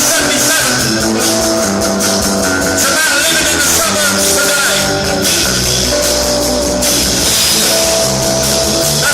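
Punk rock band playing live and loud, with electric guitars and drums.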